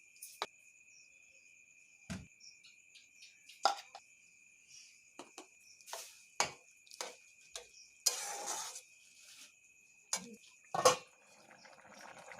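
Scattered clinks and knocks of kitchen utensils against pots and dishes, the loudest a sharp knock near the end, with a brief scraping rustle about two-thirds in. A faint steady high tone runs underneath.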